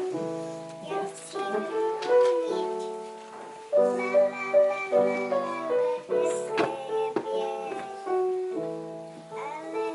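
Upright piano playing chords, accompanying a group of young children singing.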